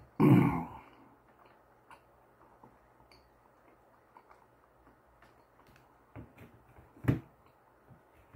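Quiet chewing of a mouthful of sushi with scattered faint clicks. A short, loud breathy mouth noise comes just after the start, and a single sharp tap about seven seconds in, as wooden chopsticks go to a black plastic sauce dish.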